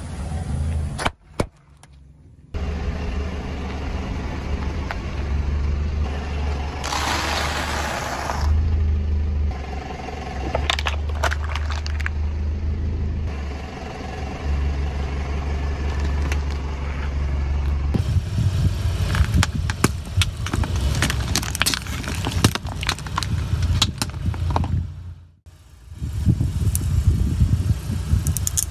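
A car tyre rolling slowly over objects on asphalt: a steady low engine-and-tyre rumble, a rush of noise lasting about a second and a half a few seconds in, then rapid crackling and snapping as plastic items are crushed, among them plastic scrub brushes near the end.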